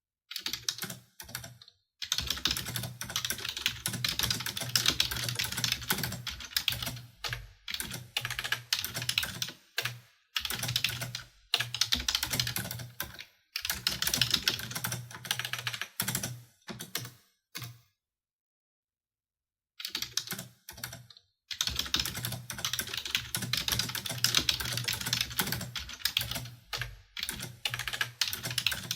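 Fast typing on a computer keyboard: dense runs of key clicks broken by short pauses, with a full stop of about two seconds a little past the middle.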